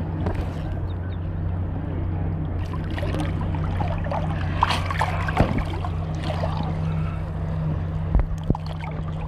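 Steady low drone of a motorboat engine, over water sloshing and splashing around an inflatable swim ring, with a few knocks near the end.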